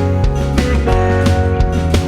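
Background music: guitar-led instrumental with a steady beat and bass line.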